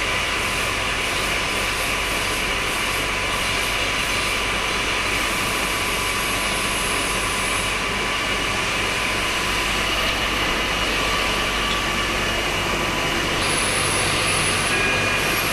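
Metal lathe running steadily while machining a workpiece: an even machine noise with faint steady tones, and a thin high whine for about a second near the end.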